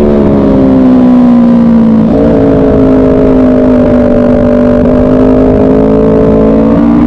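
Motorcycle engine heard onboard while lapping a track: revs falling as the bike slows, a sudden jump in revs about two seconds in as from a downshift, then the pitch eases slowly before rising again near the end as the throttle opens.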